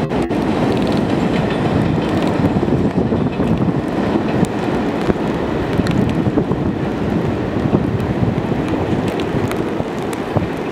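New York City Subway R68A train running on an elevated steel track, a steady loud rumble of wheels on rails as it moves away, easing slightly near the end.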